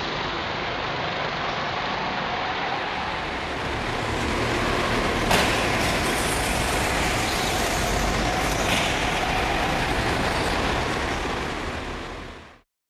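Several Sodi RX7 rental go-karts running around an indoor track, a steady engine drone, with a single sharp knock about five seconds in. The sound fades out near the end.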